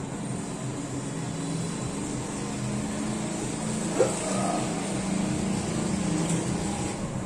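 Steady background noise with a low hum, and a brief rising squeak about four seconds in.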